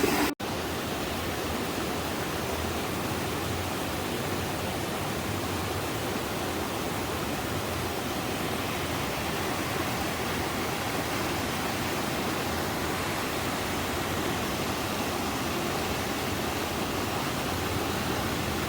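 Small mountain waterfall: water spilling and splashing over rocks in a steady, even rush.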